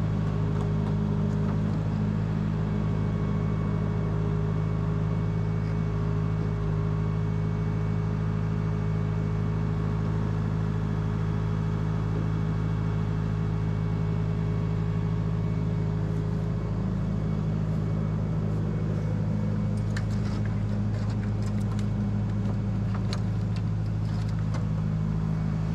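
A tow truck's engine idling steadily, with a scatter of light clicks and clinks about twenty seconds in.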